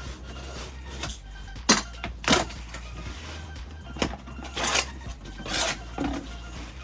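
A cardboard box being opened and unpacked: a few knocks about two seconds in, then scraping, tearing rustles of cardboard and packing, over quiet background music.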